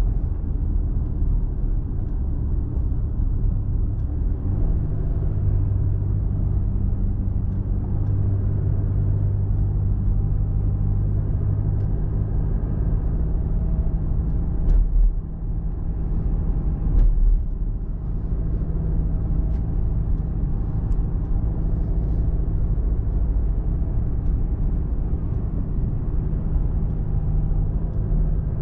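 A pickup truck driving, heard from inside the cab: a steady engine hum with tyre and road rumble. Two brief low thumps come about fifteen and seventeen seconds in.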